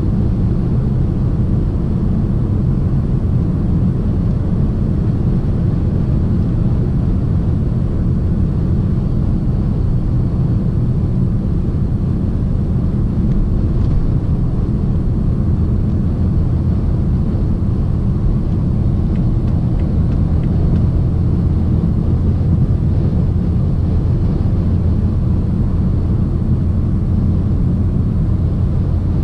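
Steady low drone inside the cabin of a BMW 750d xDrive cruising at motorway speed, with road and tyre noise and the hum of its quad-turbo straight-six diesel. It holds an even level throughout.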